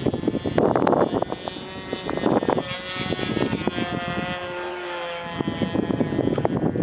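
ASP .25 two-stroke nitro glow engine on an RC plane flying overhead, a propeller buzz whose pitch shifts as the plane manoeuvres, with gusts of wind buffeting the microphone.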